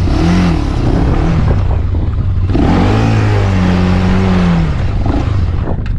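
Quad (ATV) engine revved under load as it is throttled to climb out of a sandy trench where it is stuck. A short rev comes near the start, then a longer, stronger rev from about two and a half seconds in that holds and falls away near the end.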